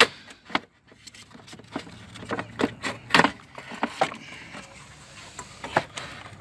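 Scattered, irregular clicks and knocks of hands handling plastic parts in a BMW E39's engine bay, around the fan shroud and coolant expansion tank.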